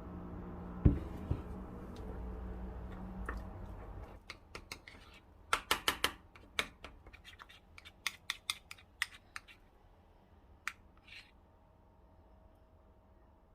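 A steady low hum for the first few seconds, then a run of sharp clicks and taps in quick clusters that thin out and stop a few seconds before the end.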